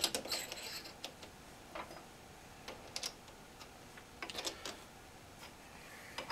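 Scattered light metal clicks and taps from a lathe's four-jaw chuck as a drill-rod workpiece is reset in the jaws and the jaws are adjusted by hand.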